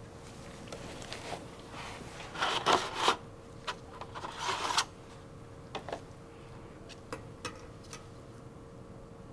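Cardboard packaging scraping and rubbing in two short bursts as a new 6-bolt disc brake rotor is slid out of its box. These are followed by a few light metal clicks as the steel rotor is set onto the wheel hub.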